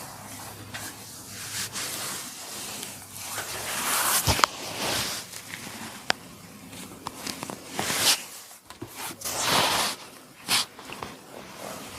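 Chiropractic head massage: hands rubbing over hair and skin in swishing strokes, with a few sharp cracks, the loudest about four seconds in.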